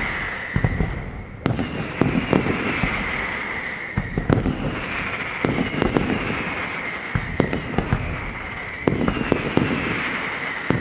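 Daytime fireworks going off in volleys every few seconds: sharp bangs and crackles, each volley with a hissing tone that slides downward.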